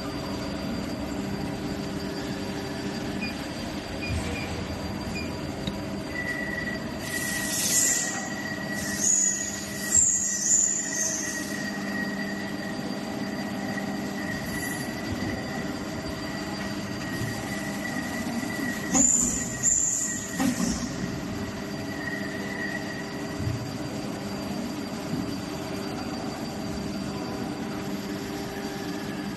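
Plastic injection moulding machine running with a steady hum of fixed tones. It breaks into loud high-pitched hissing and squealing twice, about a quarter of the way in and again about two-thirds of the way in.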